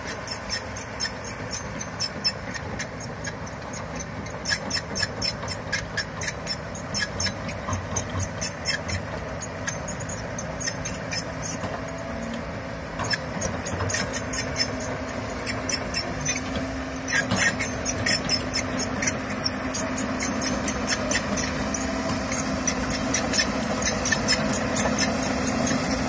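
Komatsu hydraulic excavator working soil, its diesel engine running steadily and growing louder about halfway through. Over it runs an even string of short, high-pitched squeaks, two or three a second.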